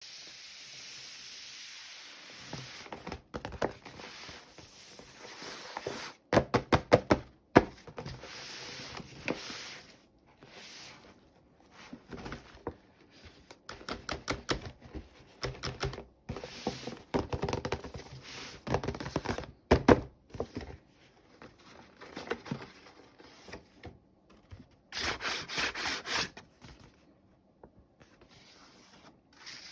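Hands handling plastic toy packaging and small doll parts: irregular clicks, taps and rustles, some in quick runs, with short stretches of hiss between them.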